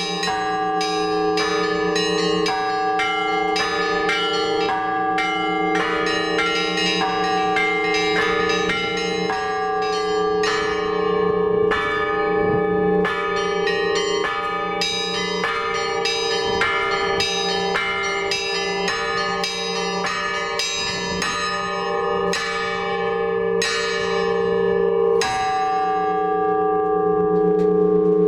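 Russian Orthodox church bells rung by a bell-ringer: quick, rhythmic strikes of the smaller bells, a few a second, over the steady hum of the larger bells. Near the end the strikes thin out while the deep bells ring on.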